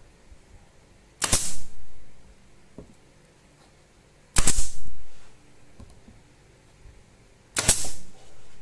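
Pneumatic brad nailer firing three times, about three seconds apart, driving brads into a wooden frame: each shot a sharp snap followed by a short hiss of exhausted air.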